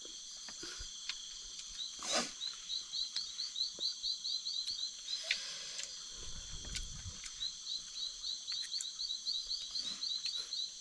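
Night-time forest insects: a steady high-pitched drone with trains of rapid repeated chirps, about five or six a second, that pause for a couple of seconds midway. A single sharp knock about two seconds in and a brief low rumble around six seconds in.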